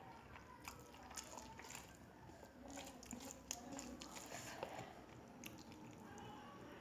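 Faint, scattered wet clicks and smacks of someone eating rice and curry, chewing between bites.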